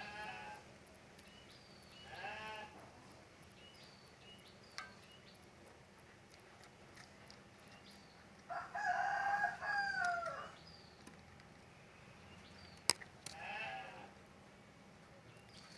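Rooster crowing once in the middle, a call of about two seconds that falls in pitch at its end. Shorter animal calls come before and after it, and there is a sharp click near the end.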